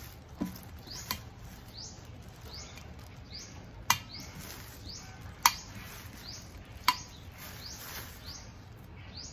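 Plastic locking tabs of an IKEA 365+ lid snapping shut onto a glass jar: three sharp clicks about a second and a half apart, after two softer knocks near the start.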